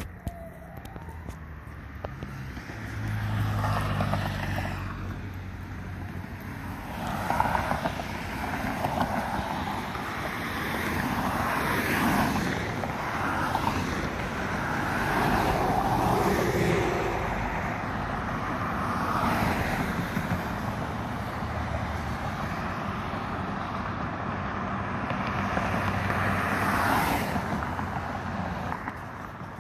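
Road traffic passing: vehicles going by one after another, each a rising and falling swell of engine and tyre noise, with a low engine tone about three to five seconds in. Wind buffets the microphone throughout.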